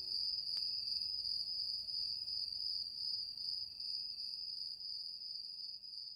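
Crickets chirring steadily, one continuous high trill that slowly fades down.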